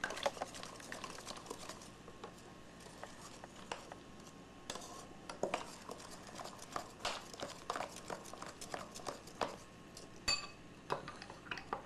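A spoon stirring a foaming cream-soda drink in a glass, with irregular light clinks and taps against the glass. About ten seconds in, one clearer clink rings.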